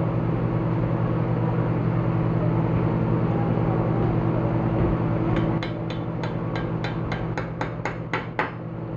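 A steady, low machine hum from running shop equipment, dropping a little in level about halfway through. In the last few seconds comes a quick, even run of about a dozen sharp taps, some four or five a second.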